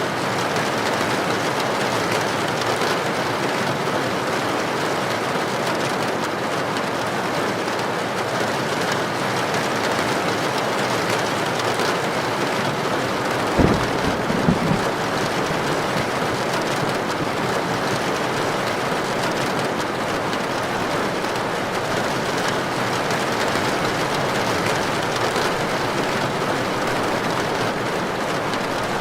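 Heavy rain drumming steadily on a tin roof. About halfway through, a sudden sharp crack of thunder, followed by a second smaller one.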